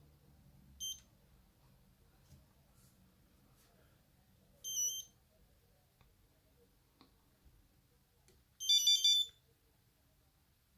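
Nokia 8210 buzzer playing short monophonic electronic tones: a brief single beep about a second in, a slightly longer tone that steps in pitch midway, and a quick run of several notes near the end.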